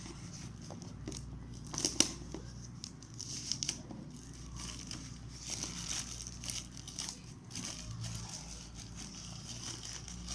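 Packaging being handled and unwrapped around a phone box: irregular crinkling and rustling with scattered clicks, the sharpest about two seconds in.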